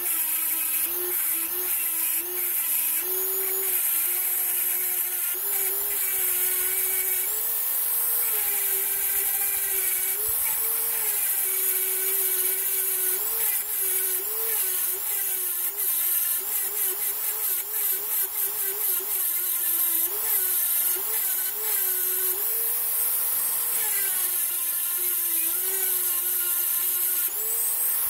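Dremel rotary tool with a small grinding bit running at high speed, grinding down a hard weld and rivet on a steel revolver hammer. The motor's steady whine wavers up and down in pitch many times as the bit works the metal.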